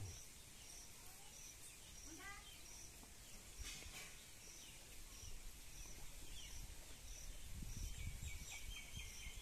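Faint outdoor ambience of birds and insects: a high chirp repeats about every two-thirds of a second, a short falling bird trill comes about two seconds in, and another bird call comes near the end. A soft low rustle comes about eight seconds in.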